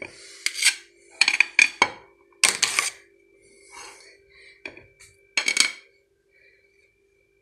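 A utensil scraping and clinking against a plate in several short bursts as cream is spread around the sides of a cake.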